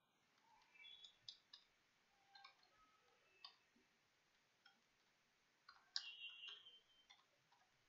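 Near silence with faint, scattered clicks of computer keyboard keys being typed, and a short cluster of clicks about six seconds in.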